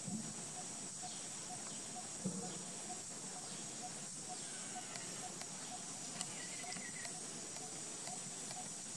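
Outdoor ambience: a steady high-pitched insect drone with a faint regular note repeating about twice a second. A brief low sound comes about two seconds in, and a short faint chirp near the end.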